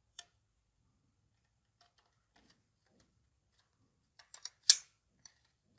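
Faint scattered ticks and light clicks of a single-core wire being handled against plastic wall-switch plates, with a short scraping rustle of the wire near the end as it is jumpered between switch terminals.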